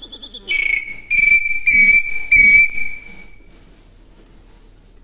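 Common hill myna giving loud whistled calls: a short note about half a second in, then three loud, level whistles in quick succession, trailing off soon after.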